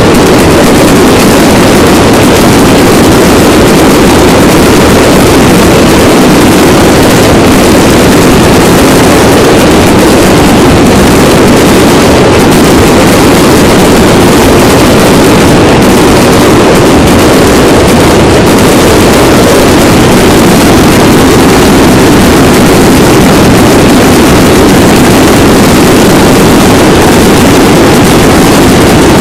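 Fireworks going off without a break, heard as one steady roar with no separate bangs standing out. The sound is so loud that the microphone is overloaded and the recording distorts throughout.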